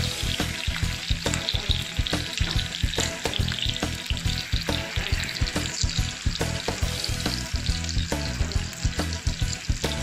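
Sliced onion and ginger sizzling in hot oil in a saucepan: a steady frying hiss dotted with many small crackling pops.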